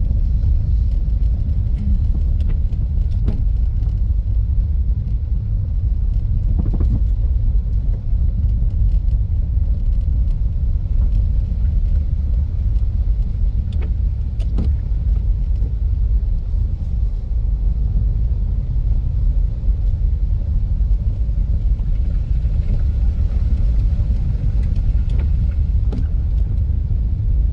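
Steady low rumble of a vehicle driving on a road, with a couple of faint brief knocks.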